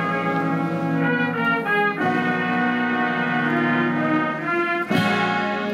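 Brass ensemble playing a slow, solemn piece in long held chords, the chords changing about a second and two seconds in and again near the end.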